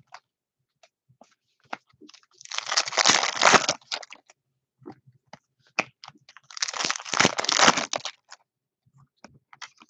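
Foil trading-card pack wrappers crinkling as they are handled and opened, in two longer spells about two and a half and six and a half seconds in, with small clicks and ticks between.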